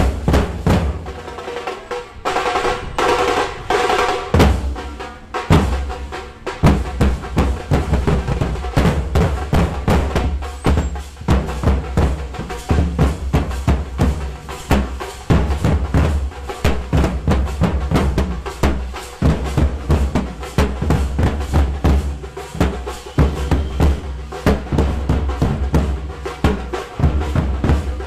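Fast, continuous drumming with heavy bass-drum beats under rapid snare-like strikes, many strikes a second, without a break.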